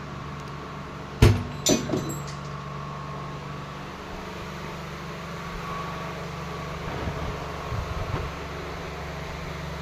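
A loud metallic clank about a second in, followed quickly by two lighter knocks that ring briefly, with a few soft knocks later on, all over a steady low hum.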